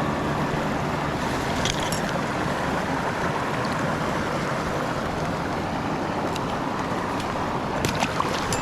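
River water flowing: a steady rushing noise, with a few faint clicks about two seconds in and near the end.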